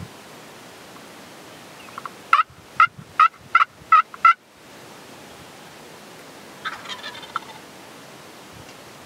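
Wild turkey tom gobbling loudly, a rapid rattling gobble of about six pulses lasting about two seconds. A shorter, fainter call follows a couple of seconds later.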